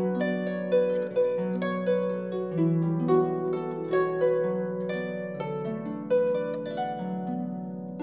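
Background music: a gentle melody of plucked-string notes, about two a second, each ringing on.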